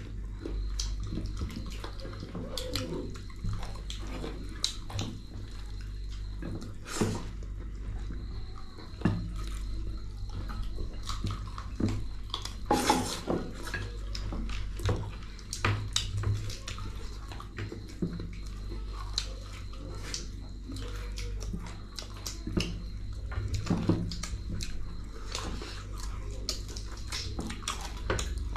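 Close-miked eating: wet mouth and chewing sounds with many short clicks and clinks of food and dishes, over a steady low hum.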